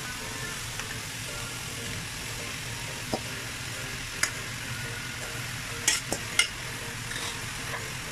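Mixed vegetables frying in a pan with a steady sizzle, while a metal spoon stirs and knocks against the pan as cooked rice is tipped in. The knocks come now and then, and the sharpest are three in quick succession about six seconds in.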